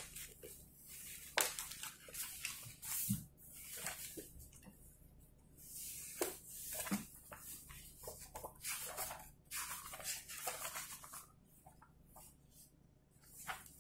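Paper pages of a textbook being turned and leafed through: a series of brief rustles and swishes, with a few sharp taps.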